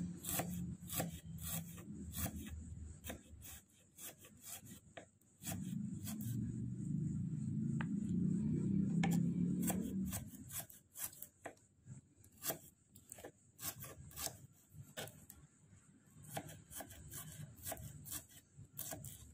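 Knife slicing shallots on a wooden cutting board: irregular sharp taps of the blade going through the bulbs and striking the board. A low hum swells in for about five seconds midway and then stops.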